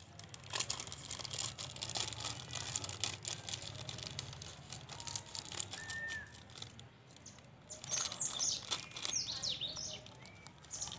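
Plastic snack packet crinkling and crackling as it is snipped open with scissors and its corn rings are emptied into a bowl. Birds chirp in the background, with a burst of quick high chirps about eight seconds in.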